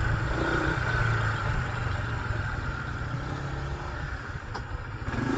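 Steady low engine rumble of motor traffic, with faint voices in the background.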